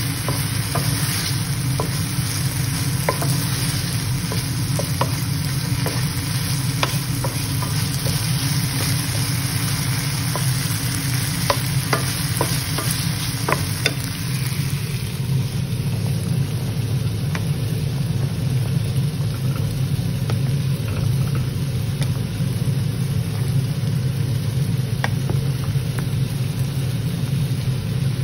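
Chicken and onion sizzling in a nonstick frying pan, with a wooden spatula stirring and knocking against the pan in scattered clicks; the sizzle fades about halfway through. A steady low hum lies underneath.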